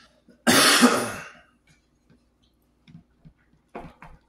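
A man coughs and clears his throat once, loudly, for about a second. A few faint clicks follow near the end as a plastic spatula stirs rice in a frying pan.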